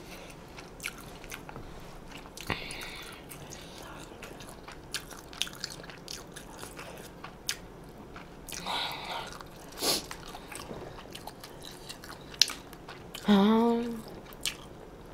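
Close-miked eating of Chicken Curry Buldak stir-fried instant noodles: chewing full of small wet mouth clicks, with two short slurps of noodles about 2.5 and 9 seconds in. A brief hum of the voice comes near the end.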